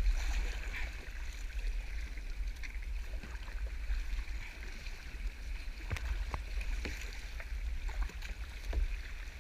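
Kayak paddling on the sea: a steady splashing hiss of water, a few short sharp knocks, and a low rumble underneath.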